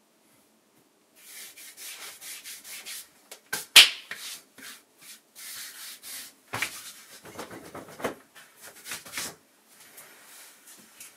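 Palms rubbing back and forth over a freshly clipped, near-bald scalp, a run of scratchy strokes starting about a second in, with a few louder ones among them.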